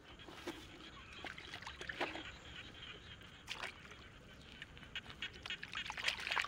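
Hands digging in wet mud and shallow water: irregular squelches, splashes and sharp little clicks, coming thicker near the end.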